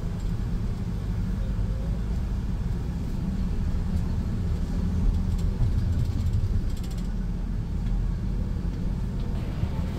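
Steady low rumble of a road vehicle in motion, with a low engine hum.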